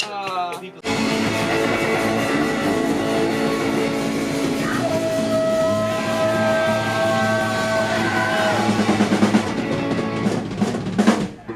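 Rock music from a band with drum kit and guitar, starting suddenly about a second in, with long held notes in the middle, and dropping away near the end.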